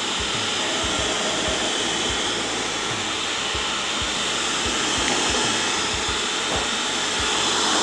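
Small Braun food processor's motor running steadily, its blade spinning through flour, diced butter, salt and egg as they are blended into crumbly shortcrust dough.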